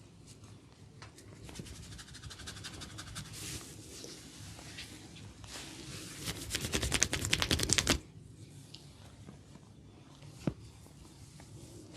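A barber's fingers working rapidly over an oiled scalp and hair: a fast, even run of crackling scratches that grows louder and stops abruptly about two-thirds in. A single sharp click follows near the end.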